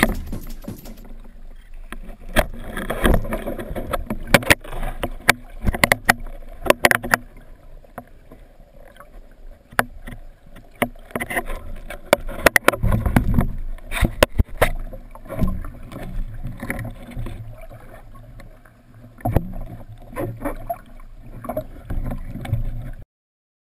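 Water sloshing and splashing, with many irregular sharp clicks and knocks. The sound cuts off abruptly near the end.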